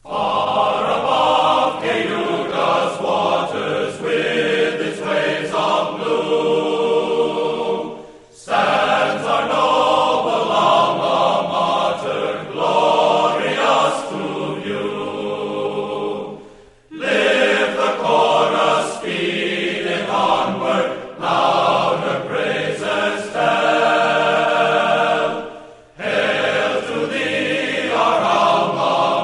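A choir singing a slow song in long phrases, with a short breath-break roughly every eight and a half seconds.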